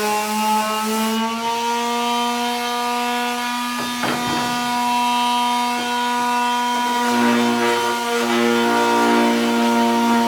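Electric sander running with a steady motor whine while the edge of a wooden skateboard deck is sanded round against it. The grinding of the wood against the sander comes and goes, busier in the last few seconds.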